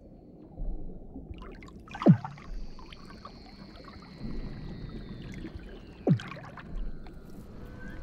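Weddell seals calling underwater beneath the sea ice: two sharp downward-sweeping chirps about four seconds apart, over a long, thin whistle that slowly falls in pitch, with a low water hiss behind.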